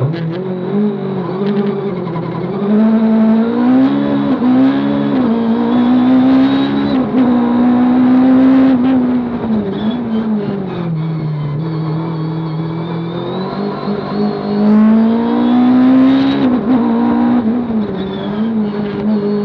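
Race car engine driven hard, its note climbing and dropping repeatedly as it accelerates, shifts gear and lifts off for corners.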